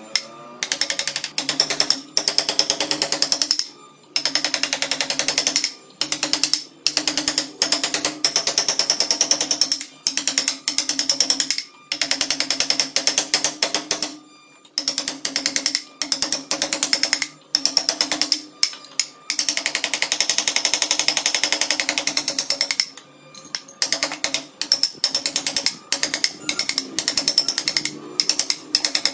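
A wooden mallet drives a carving chisel into a wood carving in rapid runs of sharp knocks, many a second, with brief pauses between runs.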